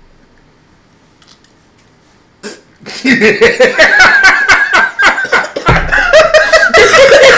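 Several people laughing hard in quick rhythmic pulses, starting about three seconds in after a quiet stretch and a brief sharp sound.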